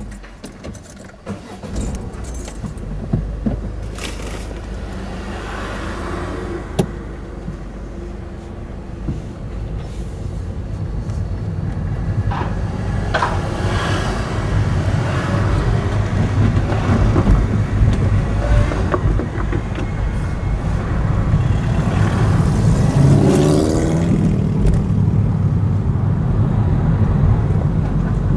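A car's engine and tyres heard from inside the cabin as it moves off and drives slowly. The rumble grows louder from about ten seconds in, with scattered light clicks and rattles.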